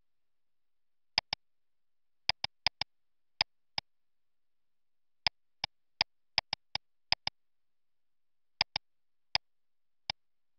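Computer mouse clicks: about twenty sharp clicks, some single and some in quick pairs like double-clicks.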